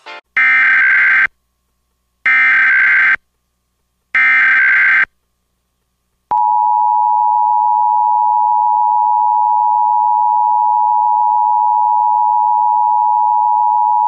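Emergency Alert System SAME header: three one-second bursts of digital data tones about a second apart, encoding a required weekly test. About a second later the NOAA Weather Radio warning alarm tone starts, a single steady 1050 Hz tone held for about eight seconds.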